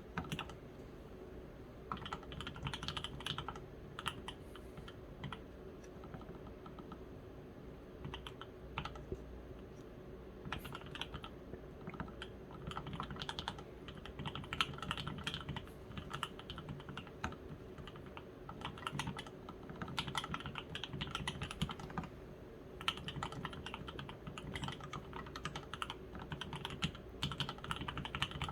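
Typing on an Evelyn custom ergonomic-layout mechanical keyboard with lubed H1 switches, lubed stabilizers and an aluminium case and plate. Quick runs of keystrokes break off every few seconds for brief pauses.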